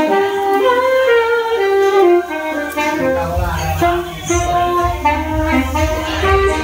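Background music: a melody of held notes that step up and down, with a low bass line that comes in about three and a half seconds in.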